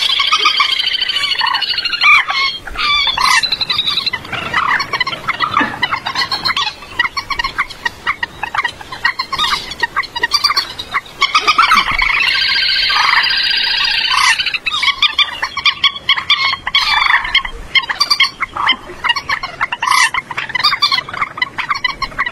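Common moorhens calling: a dense series of short, harsh calls, with two longer runs of rapid notes, one at the start and one about halfway through. This is a recorded lure call used to draw moorhens into nets at night.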